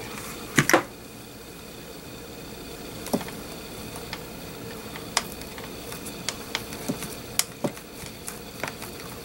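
Hands pressing a felt flower onto the inside of a train case lid, making light clicks and taps against the case. The loudest is a quick double click about half a second in, and scattered single taps follow from about three seconds on, over a steady background hum.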